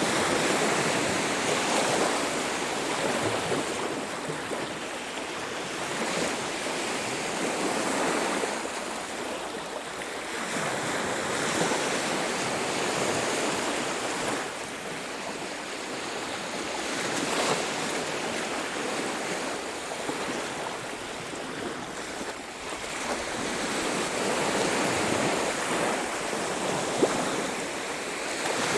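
Ocean surf on a beach: waves breaking and washing in, the rush swelling and easing every few seconds. A single sharp tick sounds near the end.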